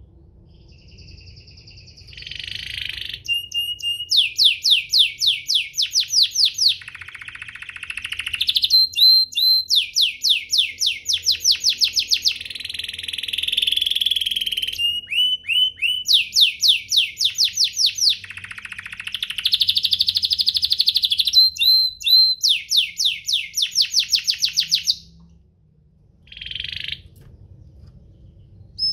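Domestic canary singing: long phrases of fast, high trills of rapidly repeated notes alternating with buzzy held notes and short chirps, pausing briefly near the end.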